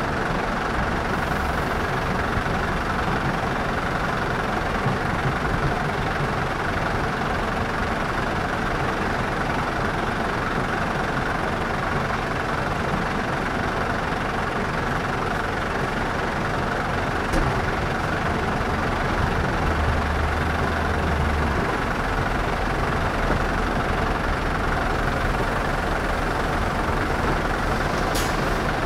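Heavy diesel engines of a Scania V8 truck and a Volvo 260 wheel loader idling steadily. A deeper low rumble joins about two-thirds of the way through.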